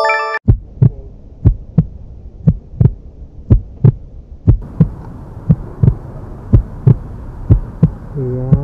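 Heartbeat sound effect: a steady thump about twice a second over a low hum, added for suspense. It opens with a short bright chime.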